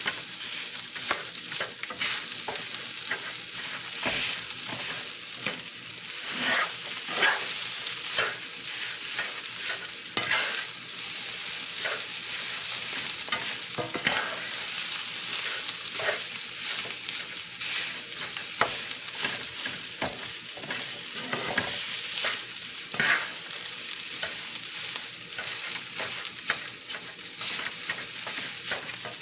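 Fried rice sizzling in a hot pan while a spatula stirs and scrapes it, with irregular clicks and scrapes over a steady frying hiss.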